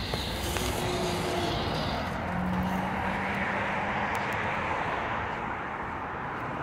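Steady outdoor traffic noise, a broad even rumble without distinct events.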